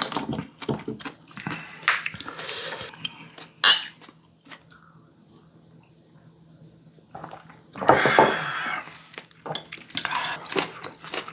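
Eating utensils clinking and scraping against bowls and plates, with one sharp clink about three and a half seconds in. A quieter spell follows, then a thicker burst of scraping about eight seconds in, and more scattered clinks.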